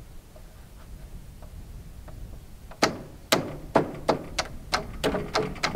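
Hammering: a series of sharp blows, about two or three a second, starting about three seconds in, each with a short ringing tail.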